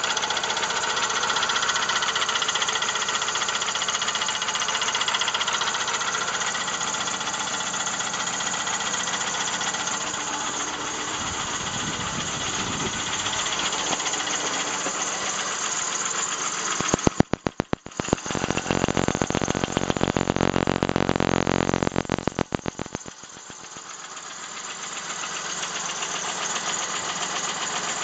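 The 3.0-litre V6 of a 1999 Plymouth Voyager running with a rapid, rhythmic knock, the sign of a cracked flywheel. A little past the middle the knocking turns loud and sharp for about six seconds, then drops back to a quieter run.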